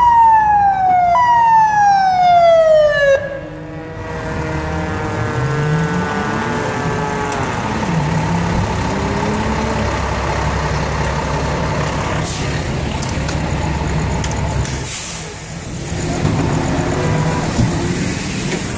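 Fire engine siren sounding in quick, repeated falling sweeps. About three seconds in it gives way to a single long tone that slides slowly down as the siren winds down. The truck's diesel engine then runs loud as it passes, its pitch rising and dropping back several times as it accelerates through the gears.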